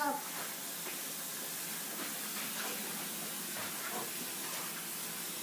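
Steady background hiss of room tone with a few faint light taps.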